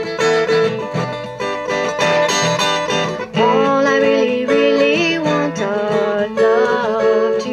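Steel-string acoustic guitar playing the accompaniment of a live folk-pop song between vocal lines.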